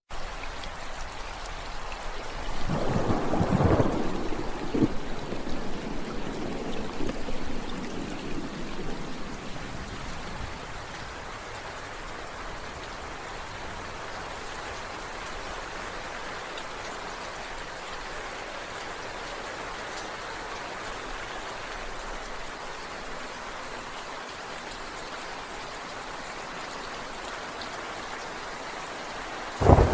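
Steady rain falling, with thunder: a rumble starts about two and a half seconds in and rolls on, fading, for several seconds, and a sudden loud crack of thunder comes right at the end.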